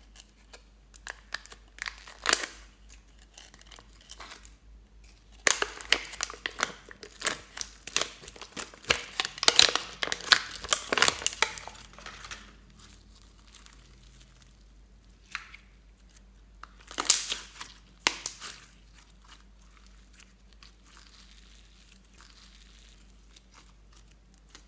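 Slime being peeled off a flexible plastic mold and pressed and rolled by hand, in irregular bursts of sticky clicking noise. The bursts are loudest from about five to twelve seconds in and again briefly around seventeen seconds in.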